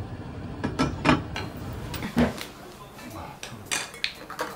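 Sharp clinks and knocks of a glass pot lid on a metal pan, over a low steady rumble that cuts out about two seconds in, then more tableware clicks and knocks.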